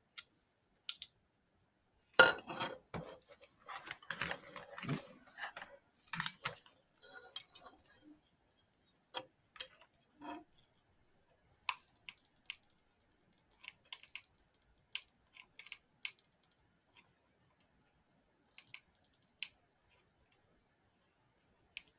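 Scattered clicks, taps and clatters of small plastic and metal parts being handled and fitted together: a toy controller's casing, springs and contacts being worked on by hand. The busiest stretch comes in the first third, with a sharp clack about two seconds in, then only occasional ticks.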